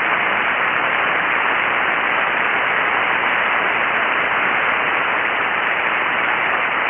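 Steady hiss of band noise from an amateur radio receiver tuned to 7.188 MHz sideband in the 40-metre band, with no station transmitting on the frequency. The hiss is even, with no high treble.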